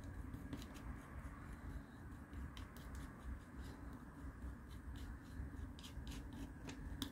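Paintbrush mixing paint on a cardboard palette: faint, irregular little ticks and scrapes of the bristles and handle over a low steady hum.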